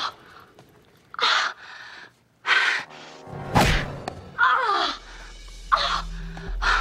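A woman's short pained cries and grunts, about six in all, some sliding in pitch like an "ow", with a single thud of an impact about three and a half seconds in. Background music runs underneath.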